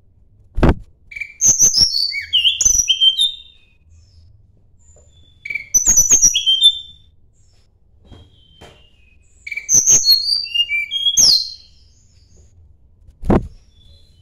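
Tledekan gunung (Sunda robin) singing three quick phrases of high, sliding chirps: a challenging song aimed at a rival. Two sharp knocks sound, one just after the start and one near the end.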